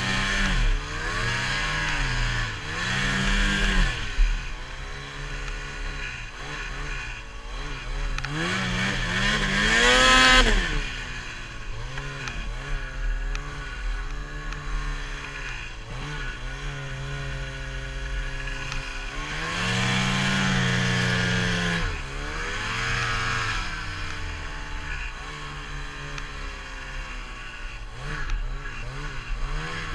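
Lynx Boondocker 800 snowmobile's two-stroke twin engine revving up and down under load in deep powder, the throttle worked over and over. It climbs to its highest rev about ten seconds in, holds high again around twenty seconds, and surges once more near the end.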